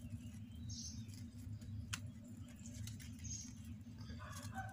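Faint rustling and small clicks of hands working a string around a melon vine to hang the fruit, with one sharper click about two seconds in, over a steady low hum.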